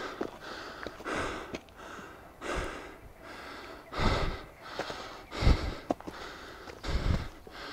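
A hiker breathing hard in quick, regular puffs while climbing a steep, rocky trail. A few heavier thuds of footsteps come on the stones about every second and a half.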